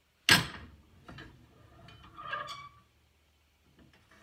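Loud metallic clank about a third of a second in, then lighter clinks and a short ringing scrape about two seconds in, as the steel grass blade of a Husqvarna 525RX brushcutter is turned and reclamped in a bench vise.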